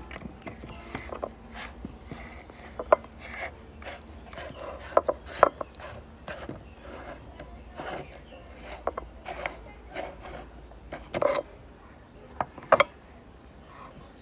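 Meat grinder crushing hard layered candy: a grinding, rasping crunch broken by irregular sharp cracks as the candy breaks, the loudest about 3, 5, 11 and 13 seconds in.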